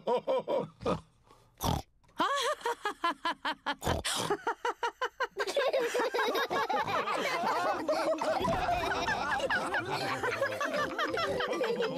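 Cartoon pig characters laughing: first in short, quick repeated bursts, then from about five seconds in the whole family laughing together in a dense, overlapping chorus.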